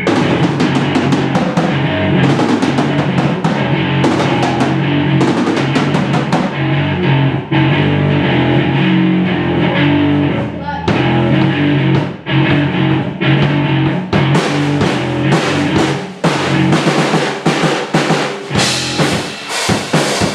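A drum kit and an amplified guitar playing rock together in band practice, with bass drum, snare and cymbal hits throughout and a brief break about eleven seconds in.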